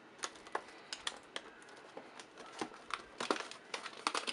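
Stiff clear plastic packaging crinkling and clicking as it is handled and pried open, in scattered sharp ticks that grow into a denser run of crackles near the end.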